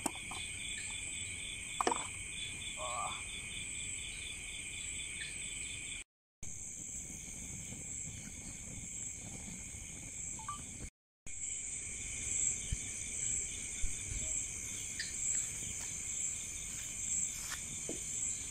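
Night insects, crickets, chirping steadily: several high trills at different pitches at once, one of them pulsing rapidly. A few faint crackles come from the burning coconut shells, and the sound cuts out briefly twice.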